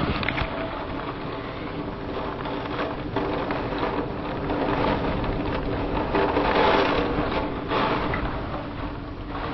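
Hurricane wind and rain rushing against the house, heard through the window glass. The sound swells in gusts and is loudest about two-thirds of the way through, with a steady low hum underneath.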